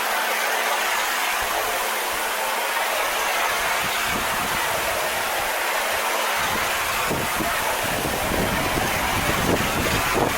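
Pressure washer spray jetting steadily onto corrugated barn tin, a loud, even hiss of water with a faint steady hum under it. About six seconds in, a deeper rumble joins the spray.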